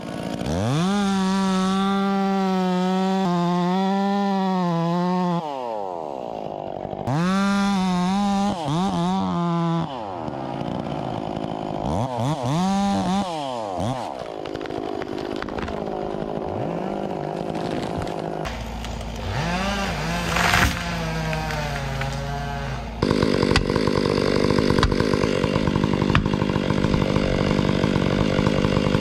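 Stihl 044 two-stroke chainsaw being run at full throttle in bursts, its pitch wavering and sagging under load as it cuts, then falling back toward idle between bursts. There is one sharp crack about two-thirds of the way through, and near the end the saw runs louder and steady again.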